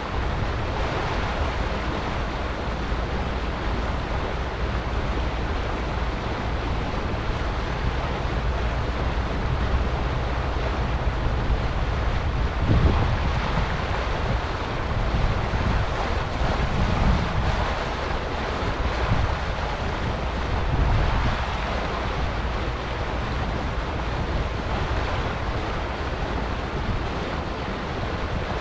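Wind buffeting the microphone over the rush of water along the hull of a motor cruiser under way, with a low steady hum underneath. Stronger gusts come through the middle.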